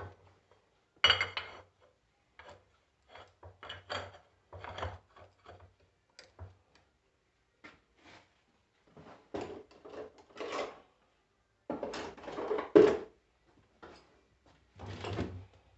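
Metal parts and hand tools being handled while a car starter motor is worked on: scattered clinks, scrapes and knocks, with a sharp knock about a second in and the loudest one about three quarters of the way through.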